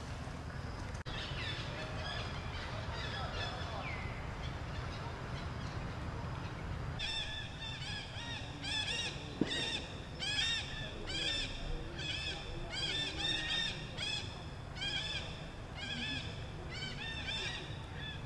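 Repeated short, arching animal calls, about two a second, starting about seven seconds in over a low steady background rumble.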